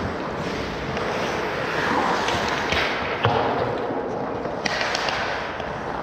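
Hockey game in play: a steady wash of rink noise with a few sharp clacks, the loudest about three seconds in.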